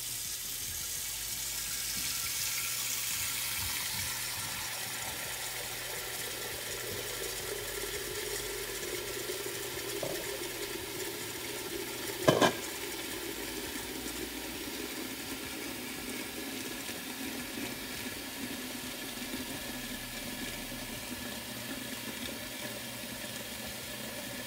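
Water from a wall-mounted pot-filler faucet pouring steadily into a large stainless-steel stockpot, splashing as the pot fills. About halfway through there is a single sharp knock.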